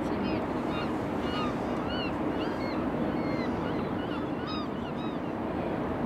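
A steady low rumble of harbour noise with some wind on the microphone, and many short, high, arching bird chirps scattered through it.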